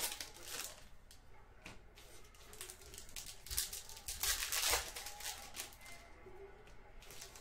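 Trading-card pack wrappers being handled and opened, crinkling and tearing, with a few sharp clicks and rustles.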